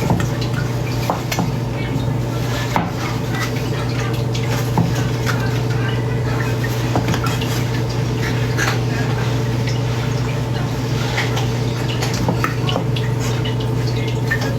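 Irregular clicks and knocks of a knife cubing food on a cutting board, with dishes clinking, over a steady low hum.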